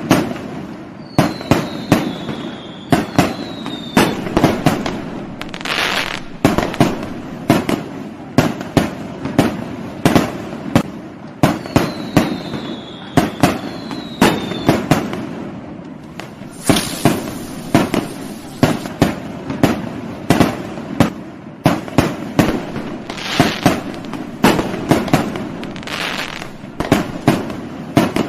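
Fireworks going off in a dense, continuous barrage: sharp bangs several times a second over crackling. Short falling whistles come twice, in pairs.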